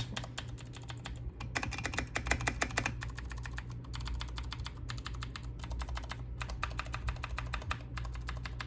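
Keys typed quickly on a Vortex KBt RE: 66 mechanical keyboard with milky white switches: a fast, continuous run of key clacks broken by a few brief pauses.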